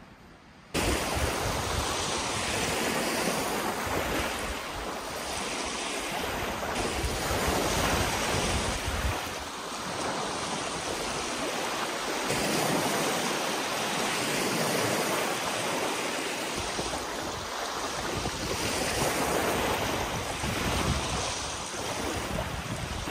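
Small waves washing onto a sandy Lake Michigan shore, rising and easing, with wind buffeting the microphone in a low rumble. The sound begins abruptly about a second in.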